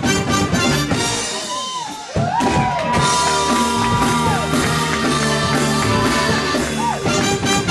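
Live rock band with a horn section playing. About a second in the beat drops out briefly with sliding notes, then the full band comes back in under a long held note that ends after about two seconds.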